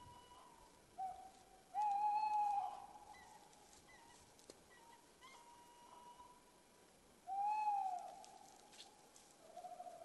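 A pair of tawny owls calling, male and female answering each other. Two loud drawn-out calls, each about a second long, come about two seconds in and again about seven seconds in, with fainter, steadier calls between.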